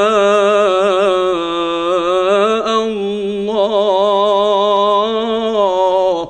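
Male Qur'an reciter's voice holding one long drawn-out vowel at the end of 'yasha'' in melodic recitation, the pitch wavering in ornaments. The pitch steps up about halfway through, and the note cuts off right at the end.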